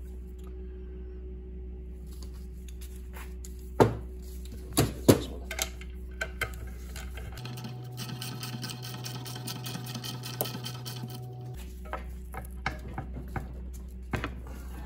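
Hand tools on the aluminium engine cover as the oil pump cover's 10 mm bolts are run down: a few sharp metal clicks and taps, then about four seconds of rapid ticking, like a ratchet being worked, over a steady low hum.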